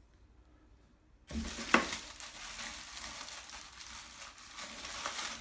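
Plastic packaging crinkling and crackling as it is handled and opened, starting about a second in, with a sharp click soon after.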